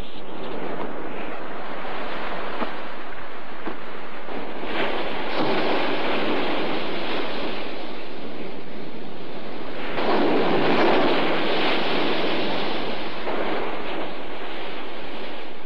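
Storm surf and wind: waves breaking in a steady rush that swells louder about five seconds in and again about ten seconds in.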